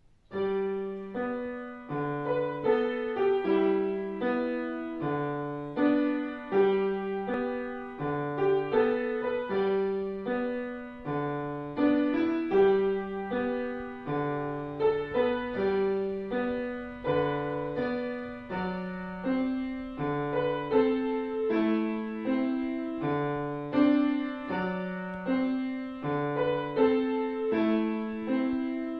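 Solo piano music starting suddenly: a steady repeating pattern of notes over a low bass line, each note fading after it is struck.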